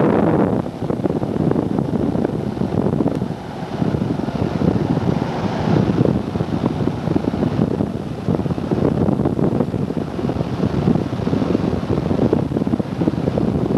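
Airplane cabin noise in flight: a continuous roar of engines and rushing air, mostly low in pitch and wavering in loudness.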